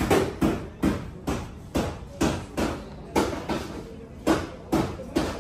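Hammer blows on a Mazda Carol's sheet-metal body panel, beating out accident damage: about two sharp strikes a second at an uneven pace, each ringing briefly.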